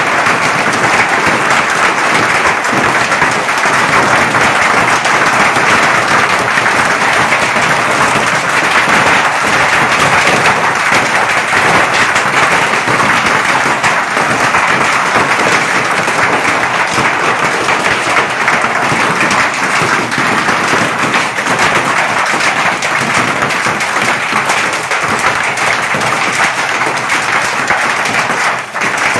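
Hail pelting down in a severe hailstorm: a loud, dense, steady clatter of countless hailstones striking the ground and surroundings.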